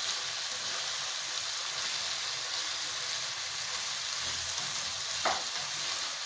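Mixed vegetables frying over a low flame in a wok while a slotted metal spatula stirs them: a steady sizzling hiss, with one brief knock about five seconds in.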